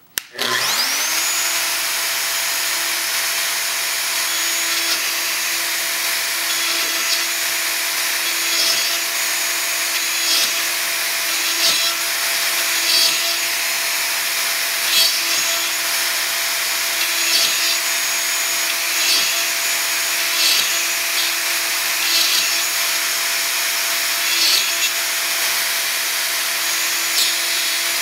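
Festool plunge router switched on, its motor whining up to speed in the first half second, then running steadily with a high whine. About every second or two, a louder cutting sound as the quarter-inch straight bit is plunged down into the hardwood to cut a mortise.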